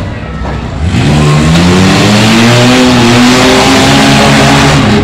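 Demolition derby cars' engines revving hard. One engine's pitch climbs from about a second in and holds high, then drops off right at the end.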